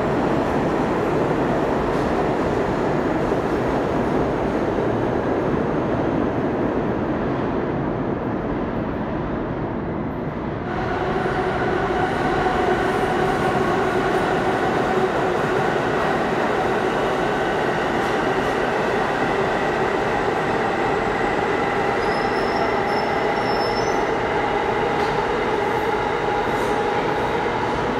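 New York City subway trains moving through an underground station: a steady rumble and wheel noise of cars running on the tracks. About ten seconds in, a steady electric whine of several tones joins it. By the end an R160 train is standing at the platform.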